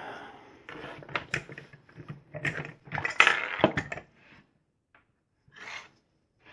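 Metal clicks and rattles of a lock cylinder and lock-picking tools being handled, a quick series over the first few seconds, then a faint soft rustle near the end.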